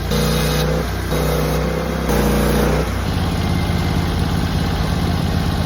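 Sawmill engine running, its tone shifting in four short steps over the first three seconds, then settling into a steady run.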